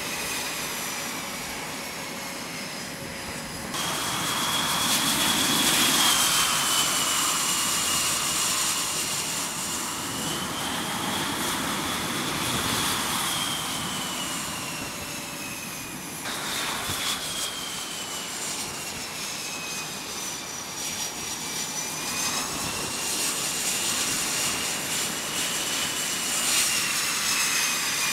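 F/A-18 Super Hornet jet engines (twin General Electric F414 turbofans) running as the jets taxi on a carrier flight deck: a loud rushing hiss with a high turbine whine that slowly rises and falls in pitch. The sound changes abruptly twice, about 4 and 16 seconds in.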